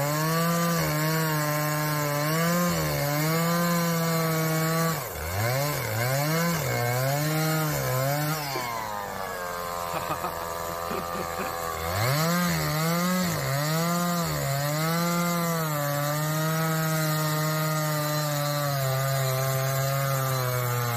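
Chainsaw engine running under load, cutting wood for firewood. The pitch rises and falls again and again as the saw bites. It eases off to a lower pitch for a few seconds midway, then revs back up.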